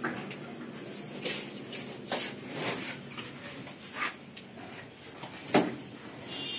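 A hand slapping and smearing wet cement mortar onto a rough concrete wall around pipe fittings: irregular short scrapes and pats, the sharpest a little over five seconds in.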